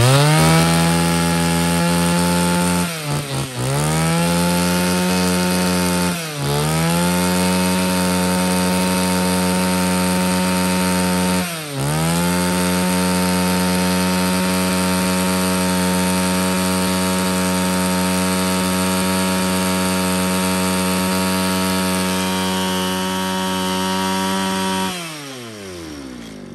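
Mitsubishi TL231 23cc two-stroke brush cutter engine revved up to a high, steady speed, with the throttle eased off briefly three times, about 3, 6 and 12 seconds in, then released near the end so the revs fall back toward idle.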